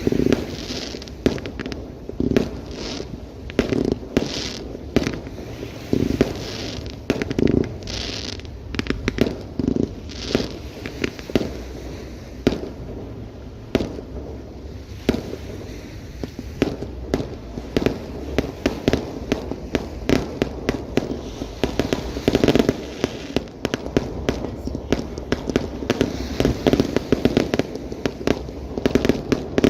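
Fireworks display: shells bursting in quick succession, a steady stream of sharp bangs that comes thicker in the second half.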